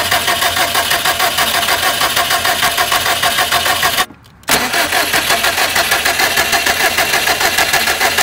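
A 2006 Subaru STI's EJ257 flat-four is being cranked over by its starter without firing, in a rhythmic, even pulsing, with a brief half-second break about four seconds in. The spark plug and coil pack are out and the fuel pump fuse is pulled for a compression test. Cylinder 1 builds only about 90 psi, which the owner takes to mean the motor is done.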